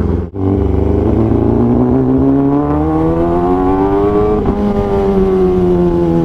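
Kawasaki ZX-10R inline-four through an Austin Racing full-system titanium GP exhaust, under way. After a brief dip just after the start, the engine note rises steadily for about four seconds, then falls slowly as the throttle eases.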